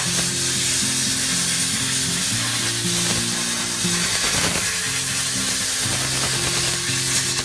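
Metal-cutting torch hissing steadily as it cuts through steel plate, with background music underneath.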